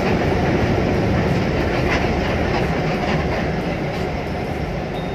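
Steady engine and road noise inside the cabin of a moving bus.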